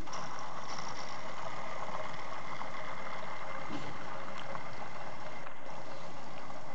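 Model Stirling hot-air engine running steadily, driving a small generator through a string belt, with an even mechanical whirr and a few faint clicks.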